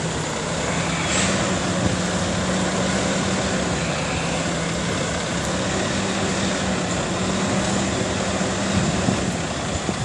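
Semi-truck's diesel engine running steadily, with a steady low hum that drops away about nine seconds in.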